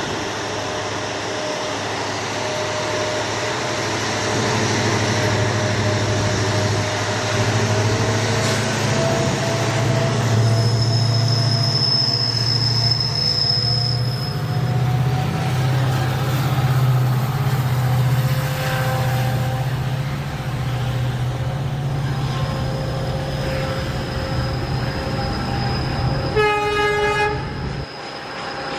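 Three EMD WDG-4 diesel locomotives, with two-stroke turbocharged 16-cylinder engines, working hard under load as they pass hauling a long goods train, followed by the rolling noise of the wagons. A high steady squeal comes and goes, and a short horn-like blast sounds near the end as the engine sound fades.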